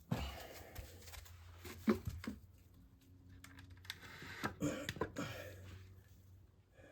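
Irregular light clicks and clatter of hand tools and metal parts being handled, with a sharper knock about two seconds in and a cluster of knocks near five seconds.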